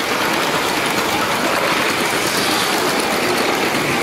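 A Lego train running along its plastic track with the microphone on board, giving a steady rolling noise mixed with the even hubbub of a crowded hall.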